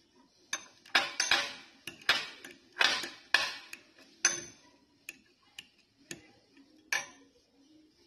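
Metal fork mashing a strawberry in a small glass bowl: irregular clinks and taps of the fork against the glass, thickest in the first half, thinning out later with one last tap near the end.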